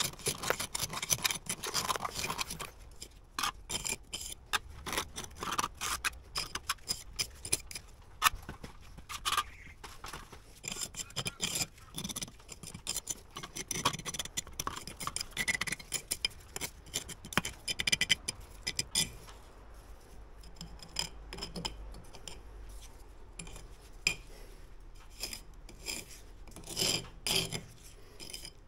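A steel jointing tool scrapes along fresh mortar joints between face bricks in short, irregular strokes, pressing mortar into the gaps and smoothing the joints. The strokes thin out in the last third.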